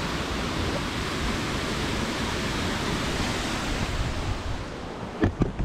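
Steady rush of a waterfall. Three short sharp thumps come near the end.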